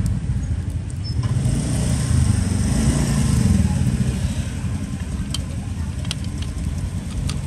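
Steady low rumble of street traffic, motorbikes and cars, with a few light clicks near the end.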